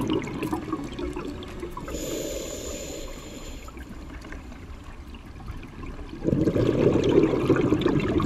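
Scuba diver breathing through a regulator, heard underwater: a rush of exhaled bubbles, a hissing inhalation about two seconds in, then a second long rush of exhaust bubbles from about six seconds in.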